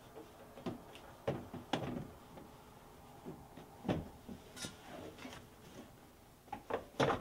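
A scattered series of light knocks and clicks, plastic on plastic, as a car's headlight assembly is worked into place against the engine-bay plastics, with a louder pair of knocks near the end.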